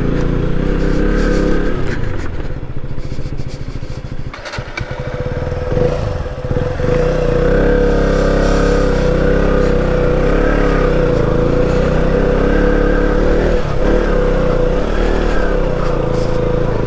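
KTM Duke 125's single-cylinder engine running under way. It eases off about three seconds in, then picks up again, its pitch rising and falling with the throttle from about six seconds on.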